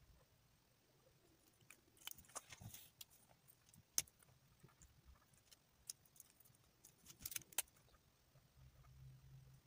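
Faint felt-tip marker strokes scratching on paper in two short bursts, with a few small sharp clicks of the marker and paper being handled, and a faint low hum near the end.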